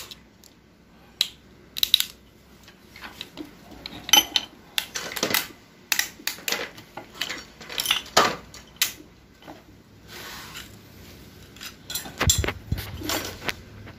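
Steel and friction clutch plates from a Toyota Harrier automatic transmission clutch pack clinking and clicking against each other and the metal drum as they are pried loose and lifted out by hand. A steel pick is also scraping in the drum. The clinks come irregularly, with a few louder ones scattered through.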